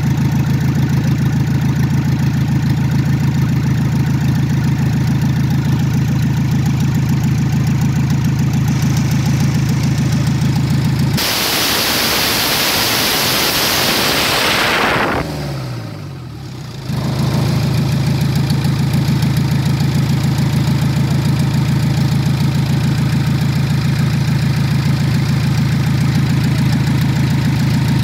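Volkswagen TDI Pumpe-Düse diesel engine idling steadily. About eleven seconds in, a loud hiss covers it for a few seconds, then a falling pitch and a short lull, before the same steady idle returns.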